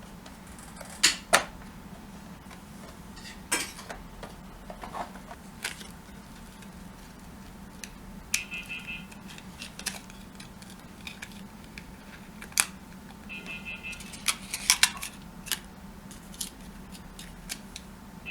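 Scattered sharp clicks and taps of hands working on a Lenovo G510 laptop's plastic casing during a RAM upgrade, with two loud clicks about a second in and a cluster near the end, over a faint steady hum.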